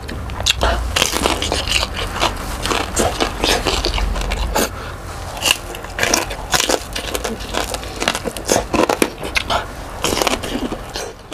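Crunching bites into crispy deep-fried pork belly (lechon kawali), with chewing: many sharp, irregular crackly crunches.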